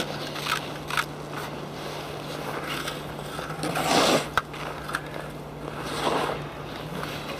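Scraping and crunching on snow-covered ice: a few separate strokes, the loudest about four and six seconds in.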